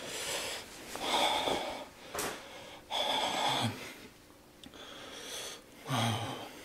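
A man breathing hard through his mouth in about five loud rasping breaths with pauses between, two of them ending in a short voiced sound: his mouth is burning from the extremely hot One Chip Challenge chili chip.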